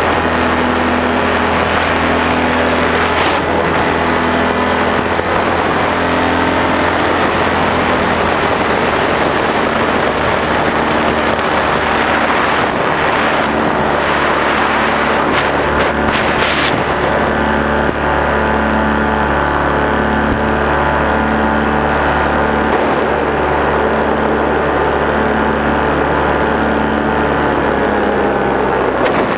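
A small engine running steadily, its pitch dipping slightly near the end.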